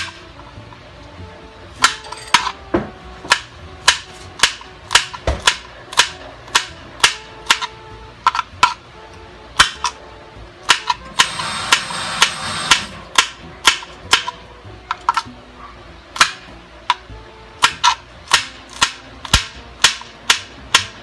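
Kitchen knife chopping green chilies into rounds on a cutting board: sharp knocks of the blade hitting the board, about two a second, starting about two seconds in. A short rustling noise comes about halfway through.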